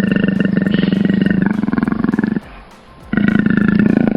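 Leopard growling: two long, rasping growls with a short break about two and a half seconds in.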